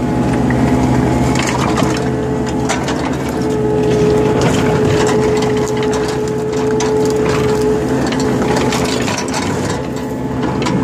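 A heavy machine's engine running steadily while it works, with a steady tone that grows stronger for a few seconds in the middle, and frequent scattered clanks, knocks and crunching of material and metal.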